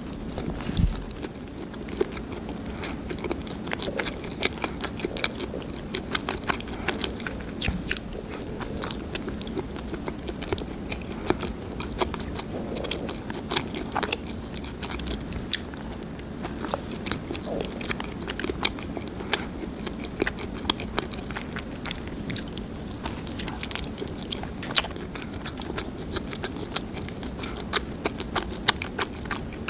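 Close-up chewing and biting of garlic salt bread, with many small crisp crackles from its crust over a steady soft chewing.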